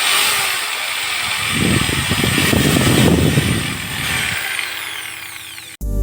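A power tool's motor running with a high whine and a rougher grinding sound through the middle, then the whine falling as the motor winds down. It cuts off suddenly into music just before the end.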